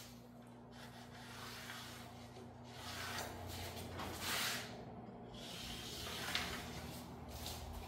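Soapstone marker scratching across a steel plate in a few short strokes while drawing cut lines; the loudest stroke comes about halfway through. A steady low hum runs underneath.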